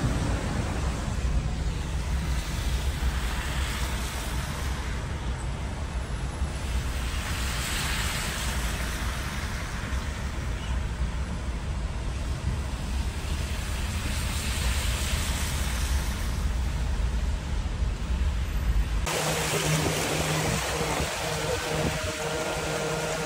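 Heavy rain and traffic on wet roads: a steady hiss over a low rumble, swelling several times as vehicles pass on the wet tarmac. The low rumble stops abruptly near the end.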